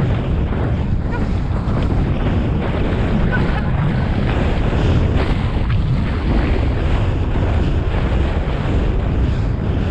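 Wind rushing over a helmet-mounted GoPro microphone as the horse gallops cross-country, a steady loud low rumble of buffeting.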